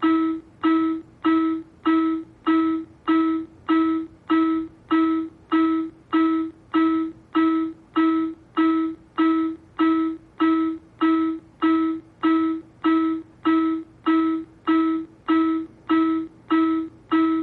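An iPAD SP1 AED's CPR metronome sounding a short, identical pitched beep just under twice a second, about thirty in a row. The beeps set the pace for one set of chest compressions at roughly 100 to 110 a minute.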